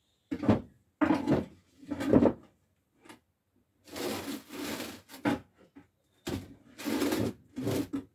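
Things being shifted and set down by hand: a run of knocks and scrapes, with one longer scraping rub about four seconds in and a cluster of knocks near the end.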